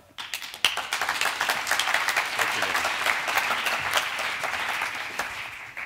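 Audience applauding, with many hands clapping together; the applause tapers off near the end.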